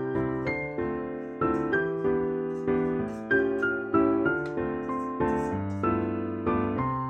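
Background music: a gentle piano melody with bass notes, struck notes decaying one after another.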